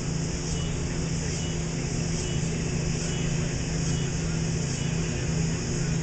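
Steady low engine drone that holds one pitch, over a constant hiss.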